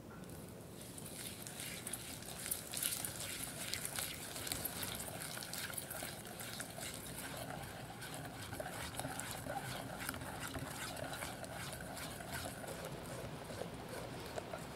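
Wire whisk beating granulated sugar into egg yolks in a glass bowl, starting about a second in: continuous wet swishing with many quick clicks of the wires against the glass. The yolks are being whisked until thick and pale for a crème brûlée custard.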